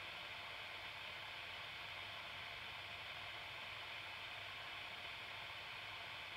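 Steady, even hiss of underwater ambience picked up by a camera submerged in a canal, muffled by the housing, with nothing standing out from it.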